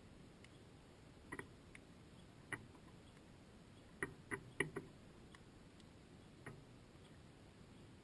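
Light sharp taps on the bird feeder, scattered, with a quick run of four about halfway through, as a house sparrow moves about on the feeder.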